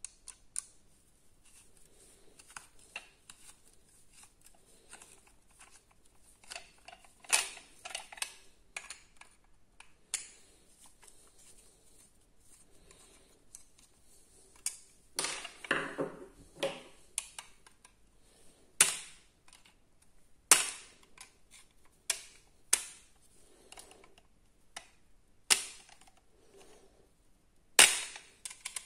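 Irregular sharp clicks and knocks, as of small hard objects being handled, with a cluster of quick knocks about halfway through and single louder ones every couple of seconds after that.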